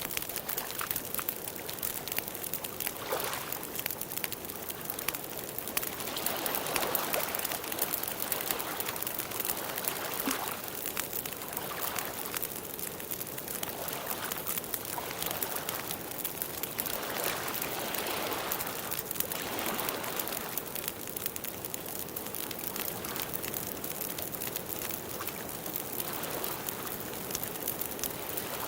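Wood campfire crackling, with many small pops and snaps over a steady hiss that swells and fades every few seconds.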